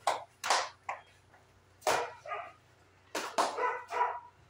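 Gloved punches landing during light sparring: sharp slaps, three near the start, one about two seconds in and two close together a little after three seconds, with short grunts in between.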